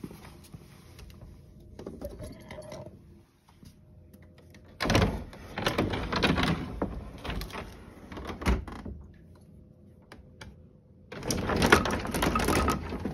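Old wooden-framed sliding door rattling and scraping in its track as it is pushed open, in two stretches about five and eleven seconds in, with a sharp knock between them.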